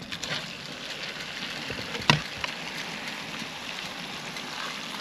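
A pot of water for noodles heating on a camp stove, a steady hiss, with one sharp knock about two seconds in.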